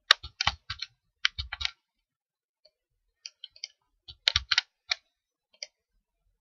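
Quick clicking at a computer: a rapid run of sharp clicks in the first second and a half, then another cluster about four to five and a half seconds in.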